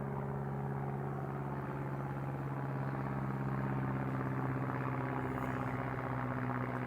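An engine running steadily at a constant speed, a continuous hum.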